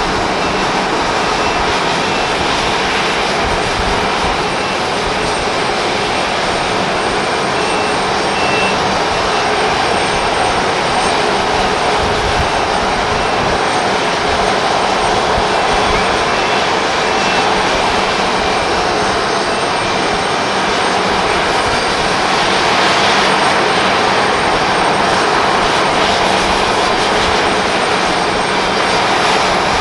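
Boeing 737-500's CFM56-3 turbofan engines running, a loud, even jet noise with a faint steady high whine, growing a little louder about two-thirds of the way through.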